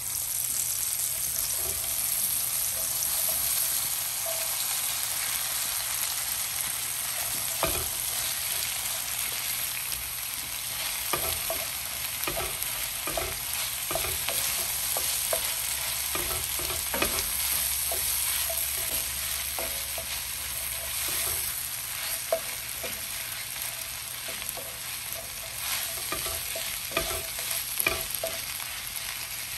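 Chopped cabbage tipped into hot oil in a pan, the sizzle rising sharply as it lands. It then fries with a steady sizzle while a wooden spoon stirs it, with frequent light knocks and scrapes against the pan.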